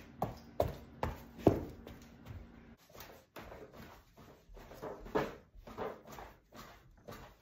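Rhythmic thuds of a person jumping, about two a second. After a short break the thumps go on a little more slowly as he bounces standing on the pedals of a Peloton exercise bike.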